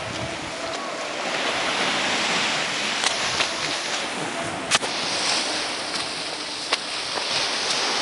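Sea surf washing against the rocks at the foot of a cliff: a steady rushing that swells and eases. A few sharp clicks cut through it, the loudest about halfway.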